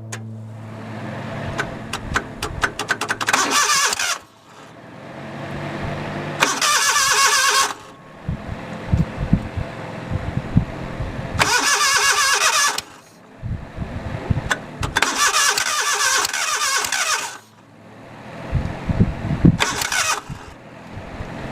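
Backhoe engine being cranked on its starter in five short bursts. Between bursts it catches and fires in uneven, irregular pulses, running roughly.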